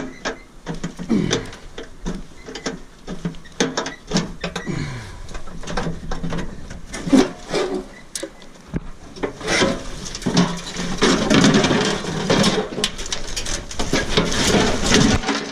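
Aluminum grill parts being twisted and pried apart by hand: repeated metal knocks and clanks with scraping and creaking, busier and louder in the second half.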